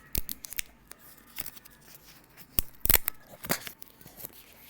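AirPods packaging being handled: a run of sharp clicks and short scraping, tearing sounds of paper and plastic, the loudest about three seconds in.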